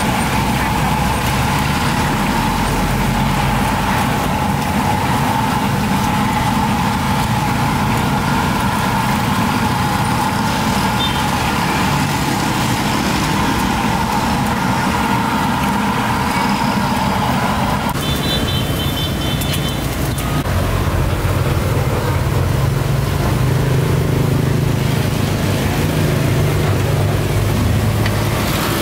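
Street traffic with vehicle engines running steadily. A steady whine stops suddenly about two-thirds of the way through, and a lower engine hum comes up near the end.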